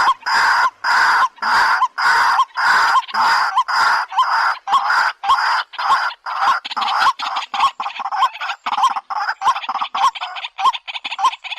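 A bird's harsh call, repeated rhythmically about twice a second. After about six seconds the calls become shorter and come faster.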